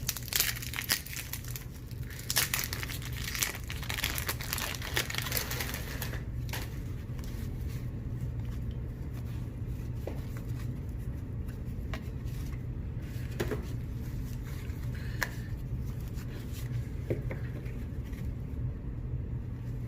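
Wax-paper baseball card pack being torn open and its wrapper crinkled for the first several seconds, then sparser clicks and rustles of cards being handled, over a steady low hum.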